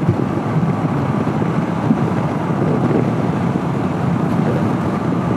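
Honda CB500X motorcycle riding at speed: the engine running steadily under a constant rush of wind and road noise over the microphone.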